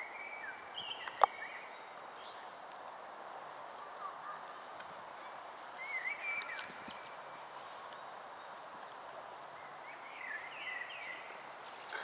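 Outdoor ambience with small birds chirping in short bursts three times. A single sharp click about a second in is the loudest sound.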